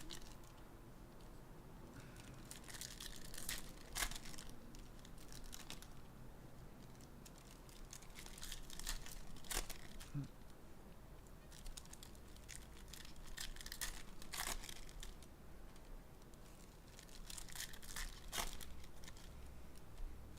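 Trading-card box packaging being handled and opened: intermittent plastic crinkling and tearing with light clicks, coming in several short spells.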